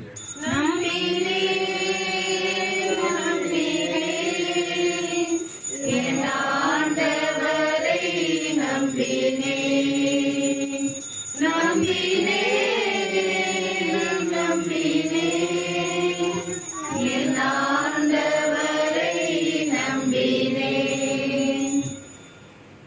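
Slow devotional music played for the elevation of the chalice at Mass: a held melody in four long phrases, which stops about a second before the end.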